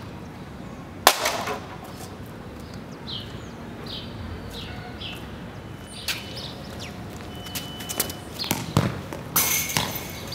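A sharp knock about a second in, then short bird chirps, then a kick of a football on an outdoor concrete court followed by a cluster of thuds and rattles.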